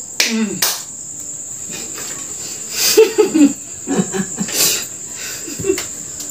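Crickets chirping steadily at a high pitch, under women's short vocal exclamations and a few sharp hand claps from a clapping game.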